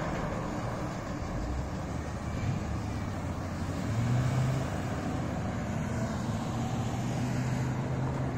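Road traffic: vehicles' engines running and passing, with a low engine hum swelling about four seconds in and again from about six seconds on.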